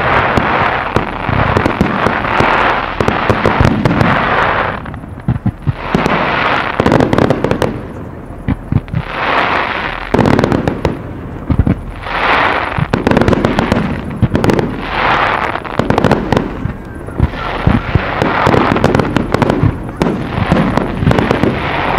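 Fireworks display with aerial shells of up to 3-inch calibre: many sharp bangs in quick succession over a dense crackling hiss that swells and fades every couple of seconds.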